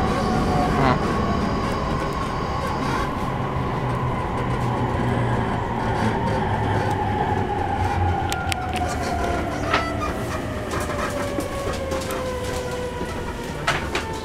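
Interior of an E231-series electric commuter train slowing down: the traction motor whine falls steadily in pitch over the rumble of the running gear as the train brakes. A few sharp clicks come near the end.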